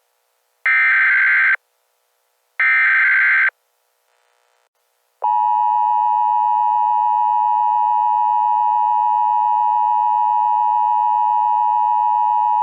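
Emergency Alert System tones. Two one-second raspy SAME header data screeches come about a second apart, closing a three-part header. About five seconds in, the steady two-tone EAS attention signal starts and holds.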